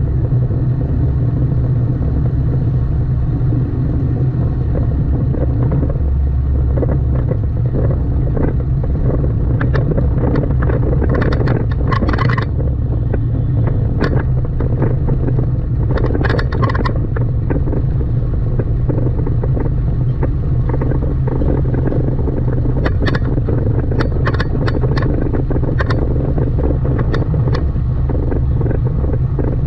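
Steady low rumble of a car being driven through city traffic, with engine and road noise. Brief sharper noises from passing traffic come and go, mostly around the middle and toward the end.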